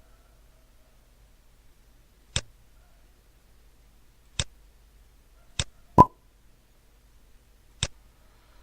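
Computer mouse clicking: five short, sharp clicks spaced one to two seconds apart, the loudest about six seconds in.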